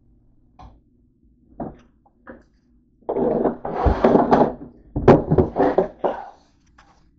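Handling noise from a camera carried about a kitchen: a few light knocks, then two longer, louder stretches of rubbing and scraping about three and five seconds in.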